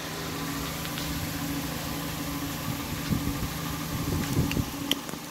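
A steady low machine hum, with rubbing and knocking from a hand handling the phone in the second half and a short click near the end.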